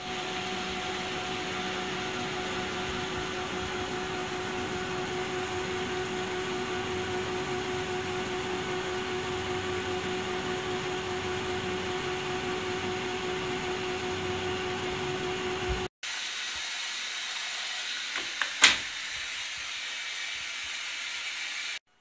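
1980 Candy Primato washing machine taking in water for a rinse: a steady rushing hiss with a constant hum. After a break the hiss is quieter, with one sharp click near the end.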